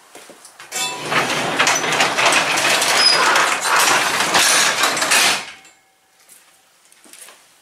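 Sectional garage door pulled down by hand, rattling and rumbling on its rollers and tracks. The sound starts about a second in and stops suddenly about five and a half seconds in as the door shuts.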